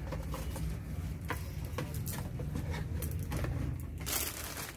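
Handling noise: a steady low rumble with scattered faint clicks and a short rustle about four seconds in.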